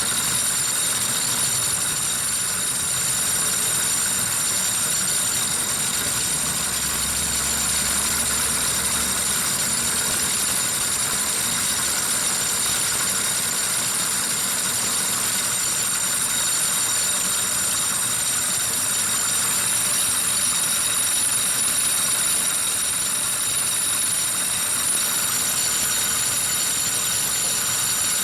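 Engine running steadily at idle, an even mechanical noise with a constant high-pitched whine over it.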